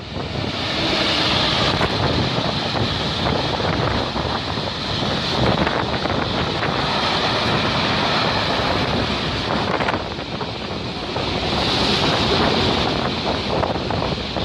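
A train passing on the main line: a steady rushing noise of wheels on rail, swelling and easing a little, with wind on the microphone.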